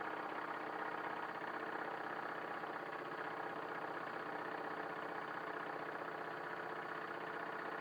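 Wilesco D21 toy steam engine running steadily at speed, a rapid even beat of chuffs with a continuous whir as it drives a small fan.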